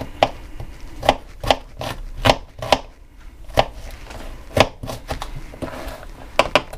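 Kitchen knife slicing shallots thin on a cutting board: about ten sharp knocks of the blade striking the board at an uneven pace, with light scraping between them.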